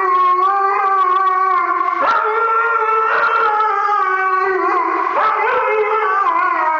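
Siberian husky howling in long, wavering notes with hardly a pause, starting a fresh note about two seconds in, while being washed with a hand shower.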